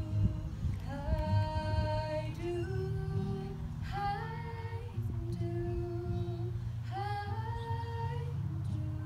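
A young woman singing a slow song into a handheld microphone, holding long notes of one to two seconds each. A low, steady accompaniment runs underneath and shifts pitch a couple of times.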